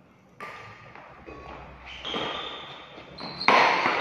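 Badminton racquets striking a shuttlecock in a doubles rally: three sharp hits about a second and a half apart, the last and loudest near the end, each ringing on in the echo of a large metal-roofed hall.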